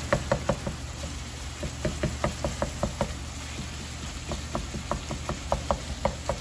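Wooden spatula knocking against a nonstick skillet in quick repeated strokes, several a second, as ground beef is chopped up and stirred, over a faint sizzle of the browning meat.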